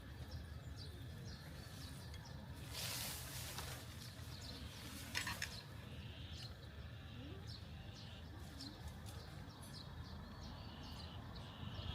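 Small birds chirping over a steady low background rumble of outdoor ambience, with a brief burst of noise about three seconds in and a short sharp sound about five seconds in.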